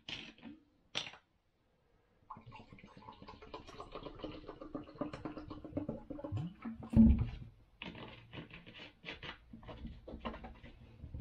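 A drink poured from a plastic bottle into a glass, a continuous glugging pour with one heavy low glug about seven seconds in. There are clicks of the bottle cap near the start, and crackling and clicks near the end as the cap is handled again.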